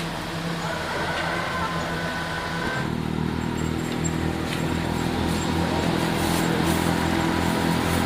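An engine running steadily, growing louder and fuller about three seconds in.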